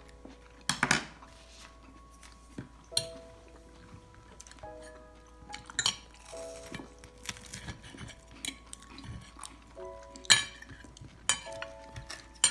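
Metal fork and knife clinking and scraping on a plate while cutting a fried cutlet, with sharp clinks every few seconds. Soft background music with held notes plays underneath.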